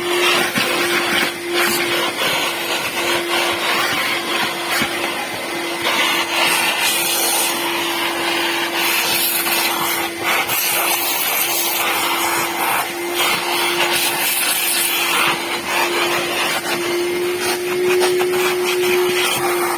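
A machine running steadily: a constant hum over a loud rushing hiss.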